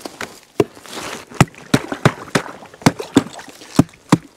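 Axe chopping into ice: about nine sharp, irregular strikes.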